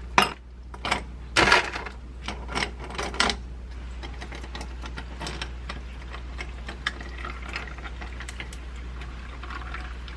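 Ice cubes dropped by hand into a glass, clinking sharply several times in the first three seconds. After that, iced drip coffee is poured from a glass server over the ice, a steady pour with many small ticks and crackles, over a low steady hum.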